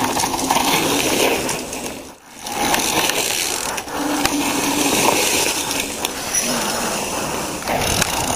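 Mountain bike riding down a rough dirt and gravel trail: tyres crunching over loose stones, with the clicking and rattling of the bike's drivetrain and frame. The noise drops briefly a little after two seconds.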